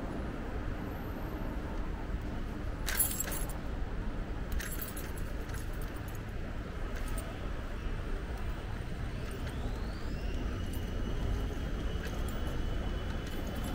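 Steady low rumble of city road traffic heard from an electric bike. A short rattle comes about three seconds in and another a second and a half later, and about ten seconds in a thin whine rises and then holds steady.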